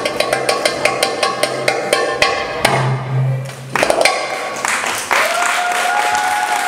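Tabla (Arabic goblet drum) played fast, with rapid crisp strokes and deep bass tones, ending on a few last hits about four seconds in. Applause follows, with a long drawn-out call from a voice over it.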